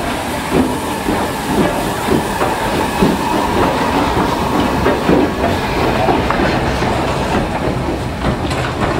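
Steam locomotive S&DJR 7F 2-8-0 No. 53809 moving slowly on the track. It gives regular beats about one and a half a second, with hiss and wheel clatter.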